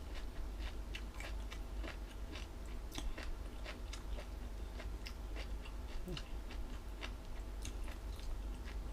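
Close-up chewing of crunchy food, jellyfish salad and fresh salad vegetables, with many small irregular crunches and crackles throughout.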